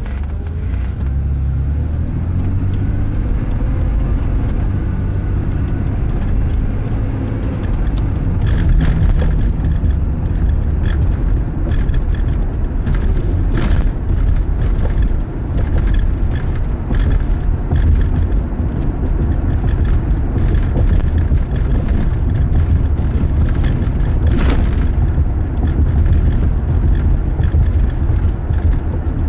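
Road and engine noise of a moving car heard from inside the cabin: a steady low rumble, with a few sharp knocks now and then.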